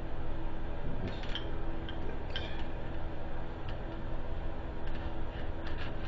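Scattered light clicks and taps of an unplugged angle grinder and its grinding wheel being handled, over a steady background hum.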